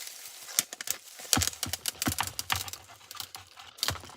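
Irregular clicks and taps of hard plastic toy packaging being handled and pried at by hand.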